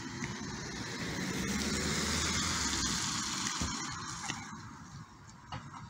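A car driving past on a wet road: tyre hiss and a low engine hum swell to a peak about two seconds in, then fade away.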